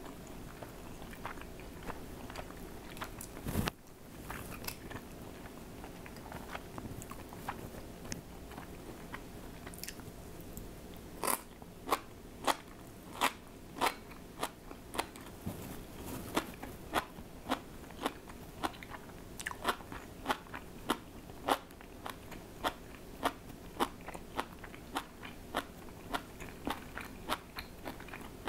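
A person chewing crunchy food: soft crackly bites at first, then from about eleven seconds in a steady run of crisp crunches, about two a second. There is one louder knock a few seconds in.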